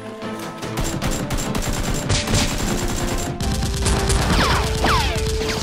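Automatic gunfire sound effects dubbed onto the action: a rapid burst starts about a second in and gets heavier about halfway. Several falling whistles come in the last couple of seconds, over background music.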